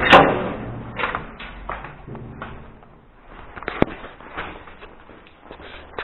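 Heavy steel entrance door with a mechanical push-button code lock banging as it is pulled open, the metallic clang ringing on for about a second. A string of lighter knocks and thuds follows, with one sharp click a little under four seconds in.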